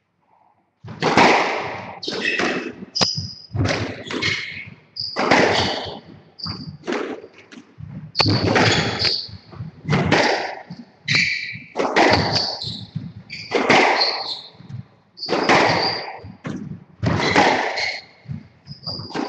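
Squash rally starting about a second in: the ball cracks off rackets and the walls, roughly once a second, each hit ringing around the enclosed court. Short high squeaks from the players' shoes on the wooden floor come in between.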